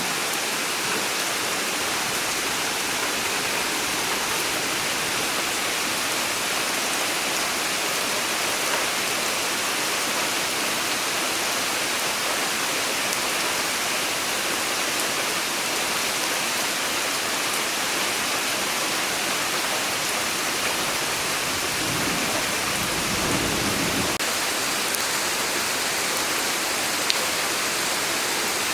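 Steady summer rain falling hard, an even, constant hiss. A brief low rumble comes about three-quarters of the way through.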